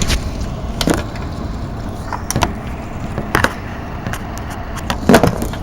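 GE 5050 BTU window air conditioner running with a steady rush of fan noise, as it is switched over to start its compressor, with several sharp clicks and knocks over it.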